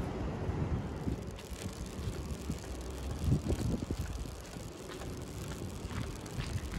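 Outdoor street ambience with wind rumbling on the microphone and faint traffic, broken by a few short clicks.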